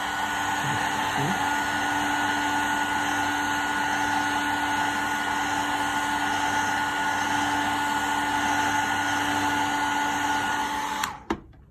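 Heat gun blowing hot air steadily, with a fan whine, to soften a broken plastic fan fin so it can be reshaped; it switches off suddenly about eleven seconds in.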